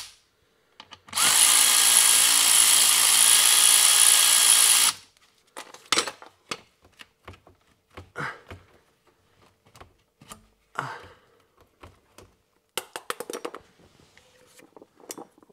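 A cordless power tool runs steadily for about four seconds, loosening the intercooler pipe's fastener. It is followed by scattered clicks and knocks of hand work as the pipe is worked free.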